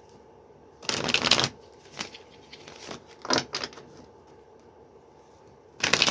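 Tarot cards being shuffled and handled: two longer rustling shuffles, one about a second in and one near the end, with short flicks of the cards between.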